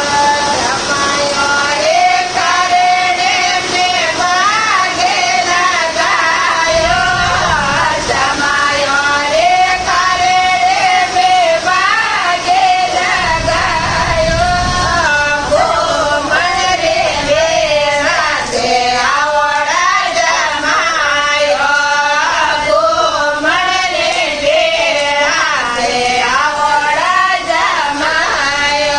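Women singing a Marwari jamai sa geet, a teasing wedding folk song (gaali) for the son-in-law, in a steady unbroken melodic line.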